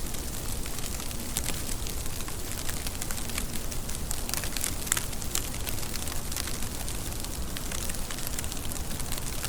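Steady rain, with many sharp drop ticks over a continuous low hiss.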